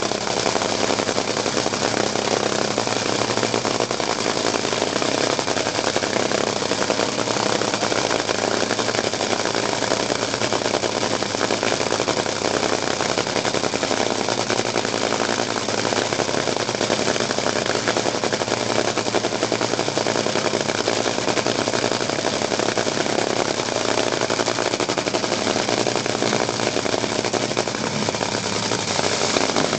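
Nitro-burning drag racing engine running a pit warm-up at a steady speed: a loud, fast, unbroken crackling clatter that does not rise or fall.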